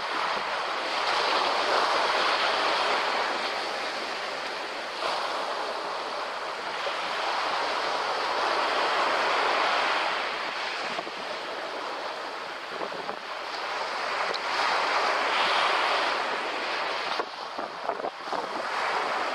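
Small ocean waves breaking and washing up a sandy beach. The surf hiss swells and ebbs in slow surges every few seconds.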